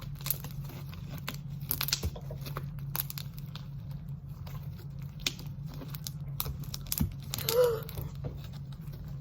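Homemade slime being stretched and squished by hand, giving off irregular sticky clicks and crackles, over a steady low hum.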